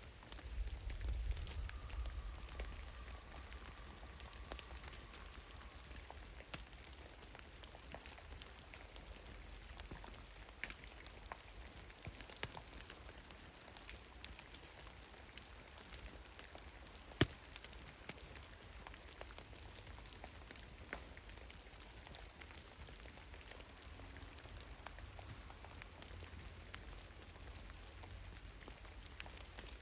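Meltwater drops falling irregularly from melting snow in a forest: scattered soft drips, with one sharper, louder drop a little past the middle. A low rumble sits under the first few seconds.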